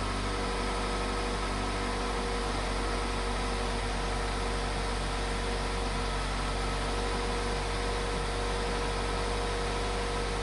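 2002 Toyota Corolla's four-cylinder engine idling steadily, heard from inside the car's cabin.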